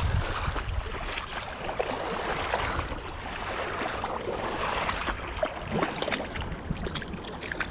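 Shallow creek water running and splashing close to the microphone, with a few faint knocks.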